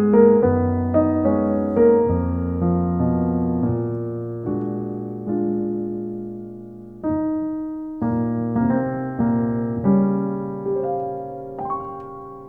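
Slow solo piano music: chords and single notes struck and left to ring and fade, with a short pause a little past halfway and a last chord dying away near the end.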